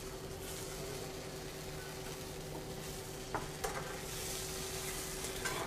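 Tofu sizzling as it fries in a stainless steel pan, with two light clicks of a metal spatula against the pan a little past halfway.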